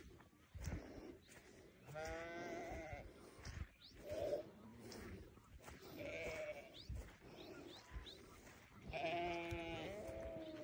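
Sheep bleating, a ewe and her newborn lamb calling: about four bleats, two of them long and wavering, with the last and loudest near the end.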